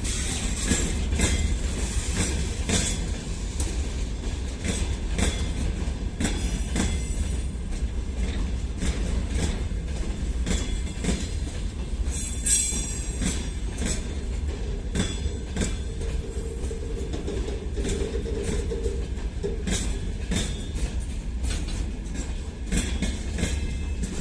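Freight train rolling past, its wheels clicking over rail joints over a steady low rumble, with a brief high wheel squeal about halfway through.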